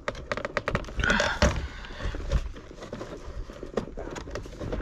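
Rustling and scraping with scattered sharp clicks as a fiber drop cable is tugged by hand through a conduit, with a couple of louder scrapes about a second in.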